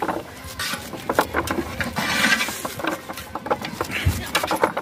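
Leafy greens being cut against a curved sickle blade by hand: quick, irregular crisp snips with rustling of the leaves.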